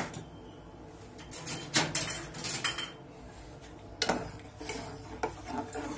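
Metal spoon stirring in a stainless steel pot of hot water with chopped vegetables and spices, clinking and scraping against the pot's side. The clinks come in two clusters, about two seconds in and again near the end.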